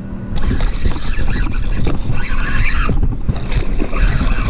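Loud, irregular rustling and handling noise full of small crackles as the angler works a rod to hook and bring in a fish.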